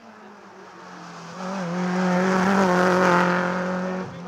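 Rally car engine at high revs under hard acceleration up a hill, growing louder as it approaches, its note held nearly steady with a brief dip about a second and a half in. The sound breaks off abruptly near the end.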